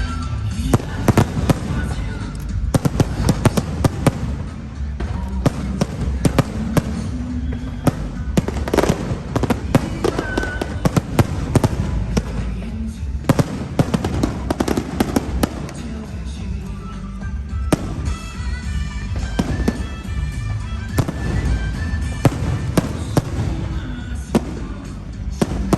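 Fireworks display: a dense, continuous string of sharp bangs and crackling, with music playing underneath.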